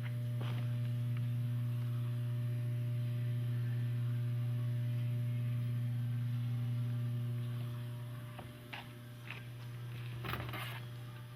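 A steady low electric hum that fades away after about eight seconds, followed by a few light clicks and a short rustle near the end.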